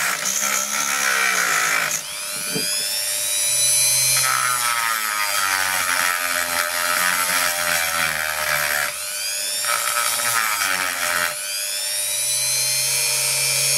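Cheap Dremel-style rotary tool with a cut-off disc grinding epoxy off the base of a small metal-cased circuit breaker. It alternates between a rough grinding rasp while the disc bites and a clean, high whine that rises as the motor speeds back up between passes.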